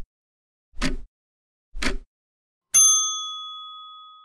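Quiz countdown sound effect: short ticks about a second apart, then a single bell ding about three seconds in that rings on and fades out, marking that time is up.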